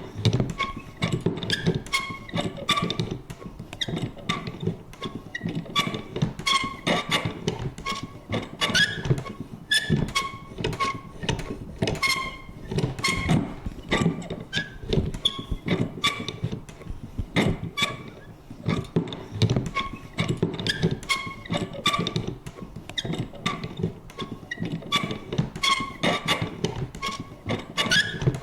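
Vintage paper punch worked over and over: a rapid, uneven run of clunks and clicks with short, high squeaky creaks from its mechanism.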